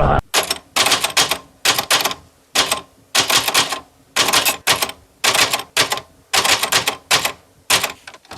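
Typewriter keys clacking in quick irregular runs of a few strokes at a time, like a typing sound effect.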